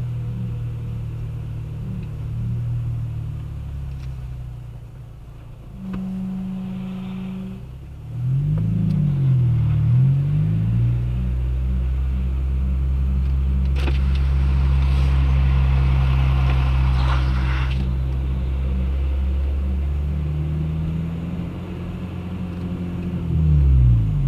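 9th-generation Honda Civic at slow speed, the engine running with its revs rising and falling twice, while a rhythmic noise repeats a few times a second from the front left wheel. The owner could not pin down its cause: first suspecting the dust shield or a worn brake rotor, later steel wheels rubbing or out of balance.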